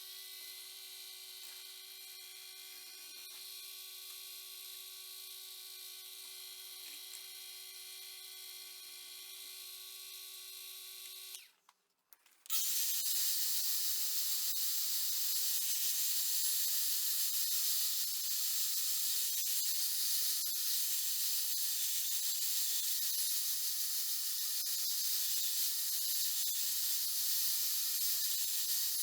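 Workshop power tools running: a steady motor whine for about eleven seconds, then after a brief break a louder, steady hissing grind of a tool working the knife's handle material.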